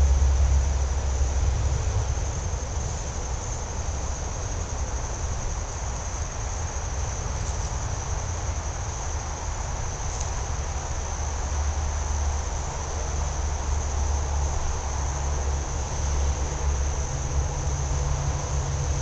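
Steady high-pitched chorus of insects, with a continuous low rumble underneath that is louder than the insects.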